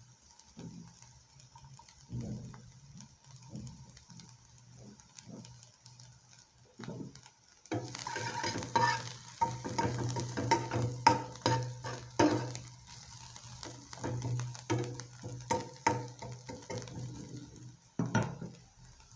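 Onions and garlic frying in oil in a pan, with a utensil stirring and scraping against the pan. Stirring is sparse at first, then brisk and continuous from about eight seconds in until near the end.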